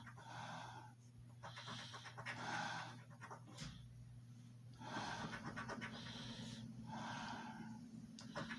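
Coin scraping the scratch-off coating of a lottery ticket in short repeated strokes, with a pause of a second or so in the middle, over a faint steady low hum.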